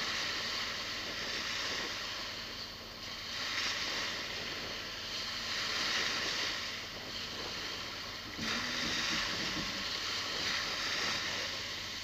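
Small sea waves washing onto a shelly sand beach, the surf swelling and fading every couple of seconds, with a low wind rumble underneath.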